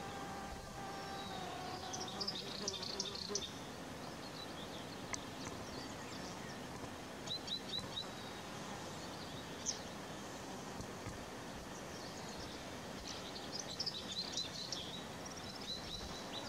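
Red-fronted serin giving high, thin twittering calls in short runs: a burst a couple of seconds in, four quick notes about halfway, and a longer twittering spell near the end, over a steady background hiss. A buzzing hum fades out within the first second or two.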